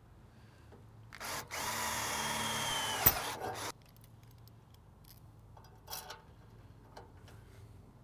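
A cordless drill runs in a short burst, then runs steadily with a whine for about two seconds, with a sharp click just before it stops. A few faint knocks follow.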